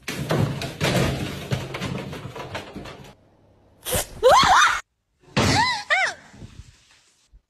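A large dog shoving its way into a plastic pet crate, the crate knocking and scraping. Then two short bursts of sliding high-pitched sounds, about four and five and a half seconds in.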